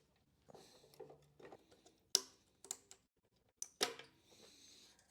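Plastic headlight housing trim on a truck's front end being jerked and pried loose: faint scattered clicks and rattles, with three sharper snaps about two, two and a half, and four seconds in. The housing is already cracked across.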